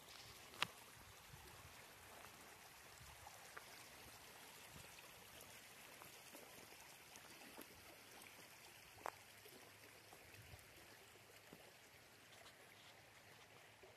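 Faint, steady rush of a brook swollen with rain, with a sharp click just after the start and a softer one about nine seconds in.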